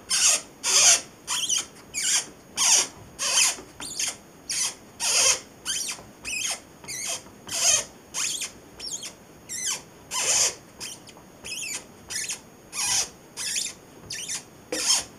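Agfa Rondinax daylight developing tank squeaking as its handle is turned to rotate the film reel through the fixer. The short, high squeaks come evenly, about two a second.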